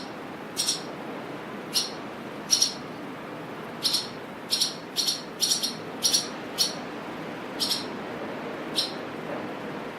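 Swallows giving short, sharp squawking calls, irregular and sometimes in quick pairs, over steady wind noise.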